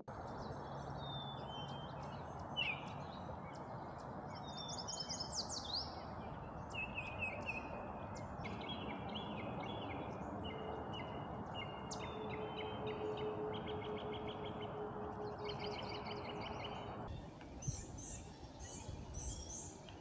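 Several songbirds singing at once over a steady low rushing noise, with a run of evenly repeated notes in the middle. Near the end the rushing stops and a short series of high, thin repeated notes is heard.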